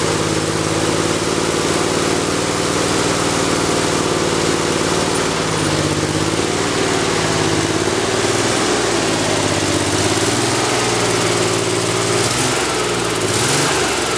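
Rebuilt 1965 Chevrolet Corvair Corsa air-cooled flat-six with four carburetors, running on an engine stand through open exhaust headers. It runs at a fast idle while the throttle linkage is worked by hand, so the engine speed wavers about six seconds in and again near the end.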